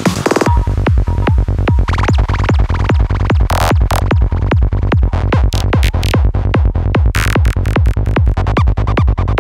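Electronic dance music with a steady beat; a heavy bass comes in about half a second in.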